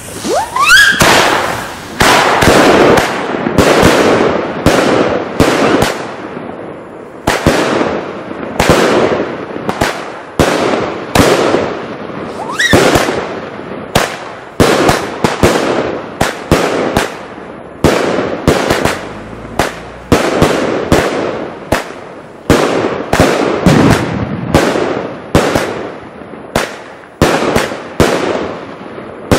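A Nico flash-bang firework battery firing a rapid string of loud bangs, about one or two a second, each echoing away, with a couple of short rising whistles between shots.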